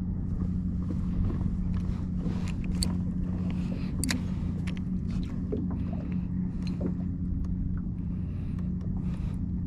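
Watersnake electric trolling motor running with a steady low hum, with a few light clicks over it.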